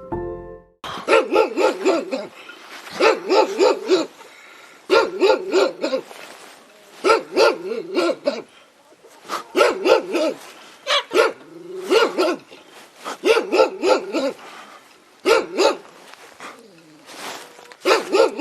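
A dog barking angrily in repeated volleys of rapid, loud barks, a burst about every two seconds with short pauses between.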